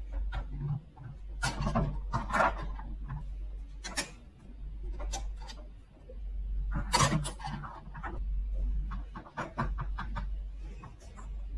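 Plastic toy horse stable and horse figurines being handled: irregular clicks, taps and light rubbing as the hinged stall door is swung shut and the figurines are set down on the tabletop, over a steady low hum.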